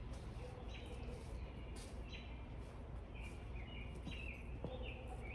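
Small birds chirping, short high chirps every second or so, over a steady low background hum.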